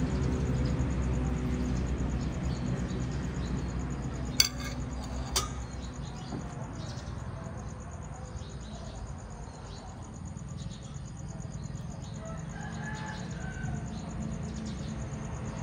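Chickens clucking faintly over a low steady hum, with two sharp clicks about four and five seconds in.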